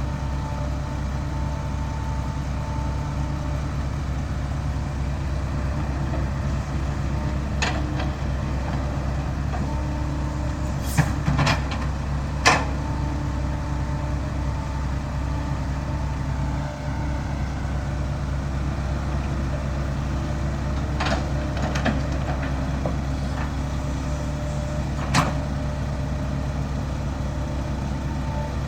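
Dump truck's diesel engine running steadily, with a few sharp clunks and rattles, the loudest a cluster about eleven to twelve and a half seconds in.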